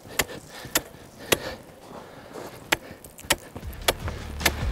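Steel ice chisel striking lake ice about six times, sharp chops half a second to a second apart with a longer gap in the middle. He is testing early-season ice thickness, and the ice holds: lots of ice.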